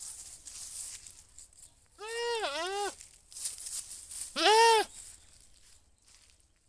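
Goat bleating twice: a wavering call about two seconds in whose pitch dips midway, then a louder, shorter call that rises and falls a little after four seconds.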